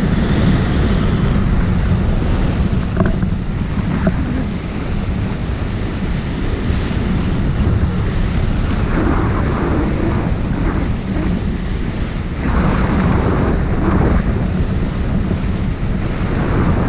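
Wind noise from the airflow of a hang glider in flight buffeting the microphone of a camera mounted on the wing: a loud, deep, steady rush that swells and eases in gusts.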